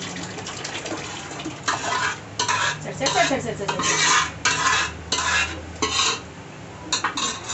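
Boiled dal being poured and scraped by hand out of a steel bowl into a steel pot of hot fried meat masala, with about five wet, hissing pours and scrapes. A few metallic clinks of the steel bowl against the pot come near the end.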